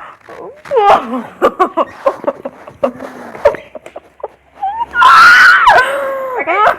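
A girl screaming: short squeals and nervous noises, then a loud, high-pitched scream held for about a second and a half, starting about five seconds in.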